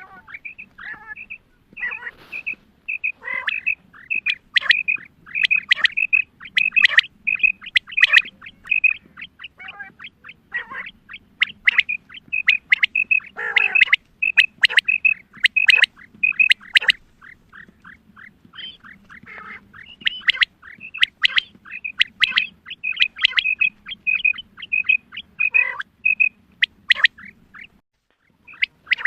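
Female quail calling, a dense run of short high chirps with quick downward-sweeping notes, repeated rapidly and almost without pause. It is the female's call used as a lure to draw in male quail for hunting.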